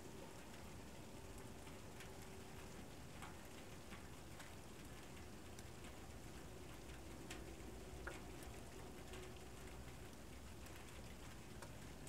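Faint, steady hiss of a quiet outdoor night scene, with scattered soft ticks and clicks coming at irregular times, roughly once a second.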